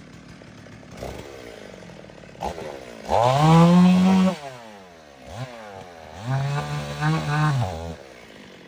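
Two-stroke chainsaw idling, then revved to full throttle twice while sawing, each burst lasting about a second and a half before the engine drops back to idle.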